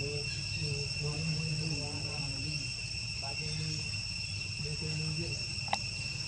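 Steady high-pitched insect drone made of several constant tones, with low, distant voices talking underneath and one sharp click near the end.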